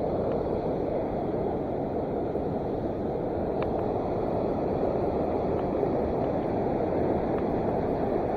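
Steady rushing of the Boise River, running a little high, an even noise with no change in level.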